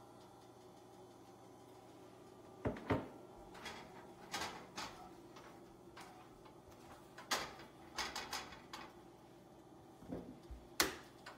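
Cookware handling on an electric coil stove: a silicone spatula and a ceramic non-stick frying pan clicking and knocking, about a dozen sharp taps and short scrapes after a few quiet seconds, the sharpest one near the end.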